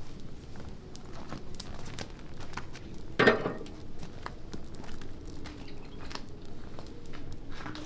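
Wood fire crackling with scattered small snaps, and one louder clunk about three seconds in.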